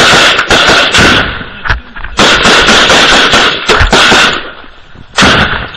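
Close automatic gunfire from a belt-fed machine gun, very loud: one long run of rapid shots, then a short burst about five seconds in.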